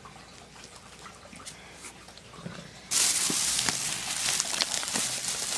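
A plastic shopping bag rustling and crinkling as it is handled. It starts suddenly about three seconds in and goes on as a steady crackle; before that there are only a few faint clicks.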